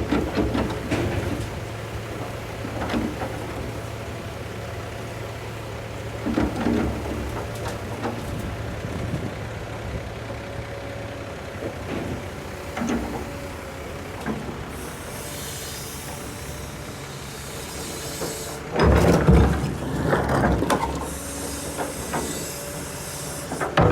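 Heavy excavator engine running while it loads a dump truck, with scattered knocks and clunks. Hissing comes twice in the second half, and a loud rumbling crash of dumped material comes near the end.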